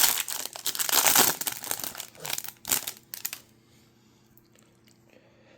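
Crinkling and tearing of a trading-card pack's wrapper as it is opened: a rapid flurry of crackles that stops about three and a half seconds in.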